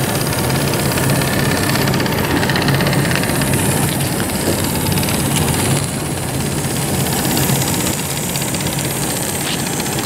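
Live-steam model truck's small steam engine running steadily as the truck drives, a rapid, even beat.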